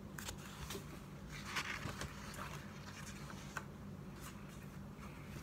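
Faint rustling and light clicks of a picture book's pages being turned and handled, over a faint steady low hum.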